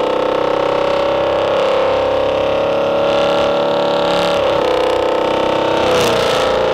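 Ford Mustang GT's 5.0-litre Coyote V8 running under load on a chassis dyno, its pitch climbing slowly. Near the end the revs dip briefly twice and pick up again.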